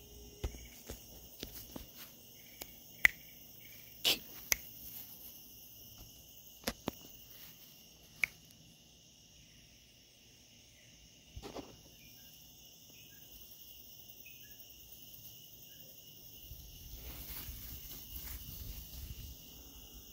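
Crickets chirring steadily in several high bands. Sharp clicks and knocks are scattered through the first half, the loudest about three seconds in, and a stretch of rustling comes near the end.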